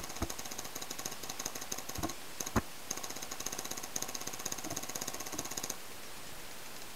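Paintball markers firing a fast, even stream of shots, with a few louder single cracks in the first half; the firing stops shortly before the end.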